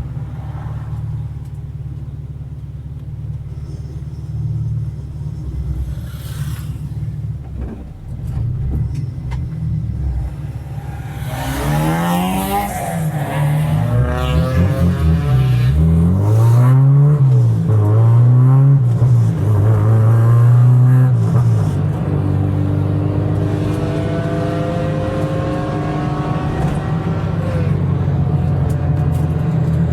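Car engine running at a steady low note, then revved up and down several times from about a third of the way in, rising and falling in pitch, before holding a steadier, higher note near the end.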